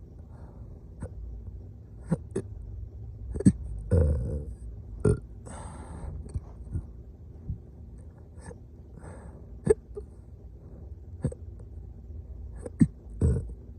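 A person hiccupping: short, sharp hiccups at irregular intervals, about ten of them, some a few seconds apart and some close together.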